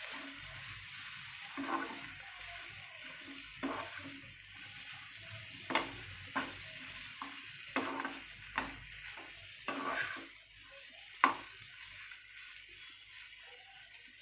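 Steel spoon stirring dried prawns, onion masala and diced potato in a frying pan over a steady sizzle of hot oil. The spoon scrapes and knocks against the pan every second or two, the sharpest knock about eleven seconds in, and the sizzle eases toward the end.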